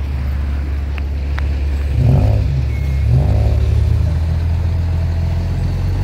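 Road traffic: vehicles running past with a steady low rumble, and two light clicks about a second in.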